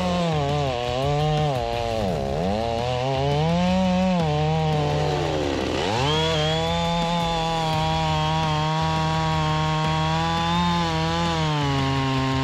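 Gasoline chainsaw running and cutting wood. Its engine pitch dips sharply and recovers twice, then holds steady under load.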